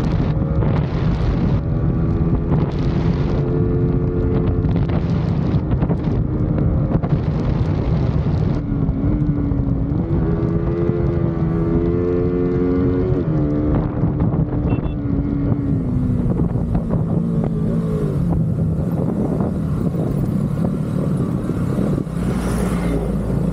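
Motorcycle engine running at speed with wind rushing over the microphone. The engine note climbs about ten seconds in, then drops in several steps over the next few seconds as the bike slows.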